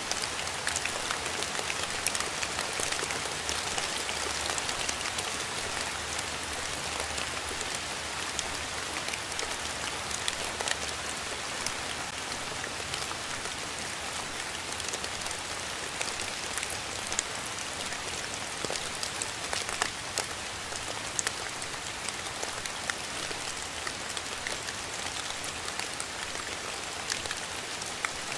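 Steady rain falling on a surface, a continuous hiss with many individual drops ticking sharply through it.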